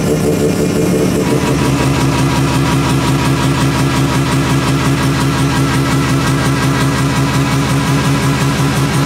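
Mazda RX-7 FD's 13B twin-rotor rotary engine idling steadily with a regular pulse, with background music playing over it.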